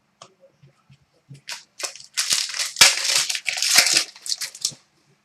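Trading-card packaging crinkling and rustling as it is handled, with a few sharp clicks; loudest in the middle, fading out about a second before the end.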